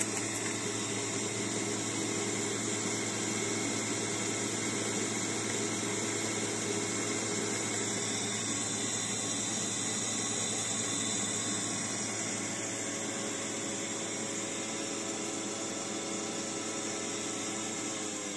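Bosch electric juicer motor running steadily with an even hum, spinning red currant pulp on a second pass to press out the last juice. Right at the end the hum starts to drop in pitch as the juicer is switched off and winds down.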